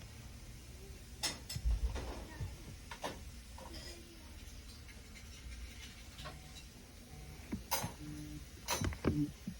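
An iPhone 6s Plus vibrating for an incoming call: short buzzing pulses in a haptic ringtone pattern, starting about six seconds in. Clinks and knocks like dishes and cutlery sound throughout.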